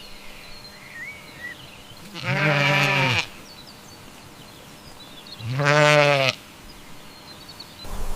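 A farm animal bleating twice, two calls of about a second each spaced roughly three seconds apart, with faint bird chirps behind.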